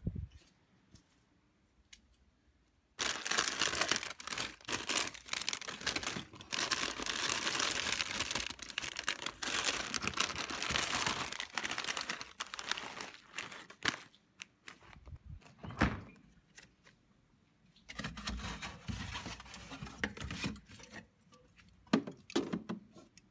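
Rustling and crinkling handling noise with many small clicks, starting about three seconds in after a near-silent opening. It thins out into scattered rustles and knocks, with a few sharp thumps near the end.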